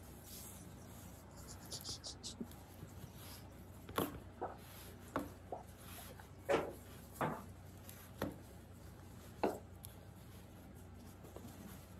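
Handling of a floured linen baker's cloth on a sheet pan: soft rustling, then about eight irregular sharp knocks from about four seconds in, as the cloth is pushed and pleated around shaped baguette dough.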